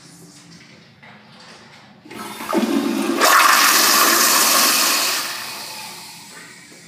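American Standard Madera toilet flushed by its chrome flushometer valve: about two seconds in the water starts with a low gush, turns into a loud rush, and then fades away over the last couple of seconds. The uploader calls it a pathetic flush.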